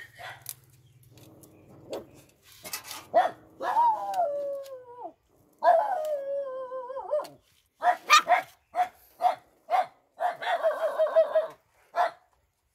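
A puppy whining and yelping: two long whines that fall in pitch a few seconds in, then a string of short yelps and a fast, shaky whimper near the end.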